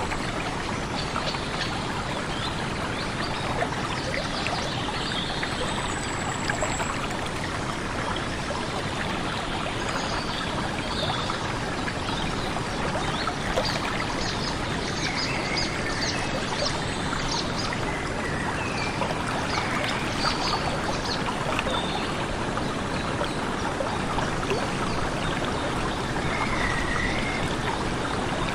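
Stream water flowing steadily, with scattered short bird chirps over it.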